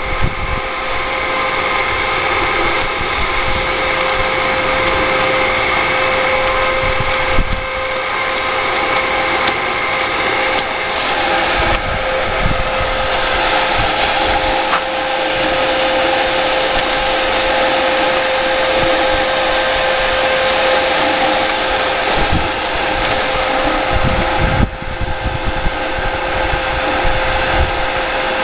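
Single-leg air dancer's electric blower fan running steadily: a loud motor hum and air rush with a steady whine, broken by irregular low thumps.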